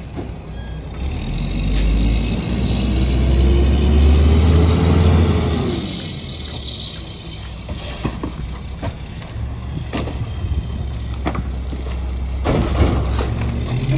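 Mack MR rear-loader garbage truck's diesel engine revving up as the truck pulls ahead, pitch rising then falling, then settling back to idle. Near the end come several knocks as trash bags and a cardboard box are thrown into the rear hopper.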